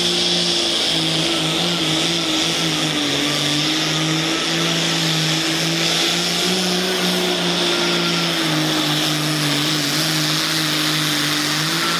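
Cummins diesel engine of a two-wheel-drive Ford pulling truck running hard under load down the pull track, held at high, nearly steady revs. The pitch dips a little about three seconds in and climbs back a few seconds later.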